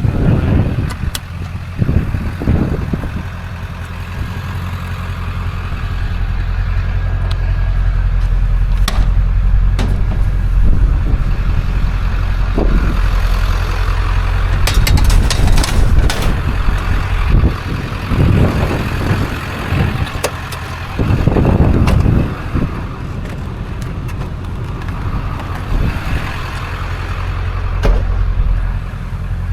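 Vehicle driving, its engine and road noise a steady low rumble, with scattered clicks and knocks and a few louder thumps about two-thirds of the way through.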